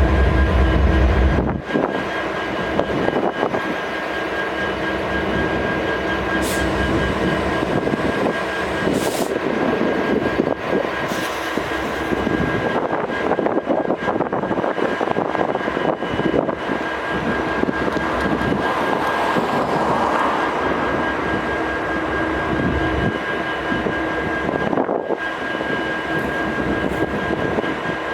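Idling diesel freight locomotives: a steady engine drone with a rough, fluttering mechanical texture and a few thin steady whines over it. A deep low rumble drops away about a second and a half in.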